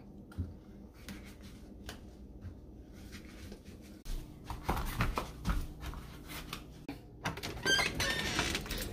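Quiet scattered footsteps and small handling knocks, then a door opened about seven seconds in with a short squeaky creak.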